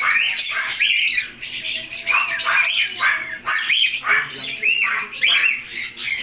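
Lovebirds chattering: a continuous run of short, high-pitched squawks, two or three a second.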